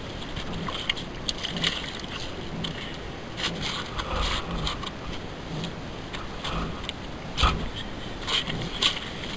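Brown trout flopping on bare ice: irregular slaps and scrapes, the loudest about seven seconds in.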